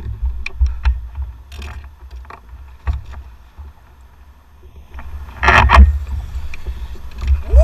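Wind rumbling on the boat-mounted camera's microphone, with scattered clicks and knocks of handling on the bass boat deck as a largemouth bass is landed. There is a louder rattling burst about five and a half seconds in.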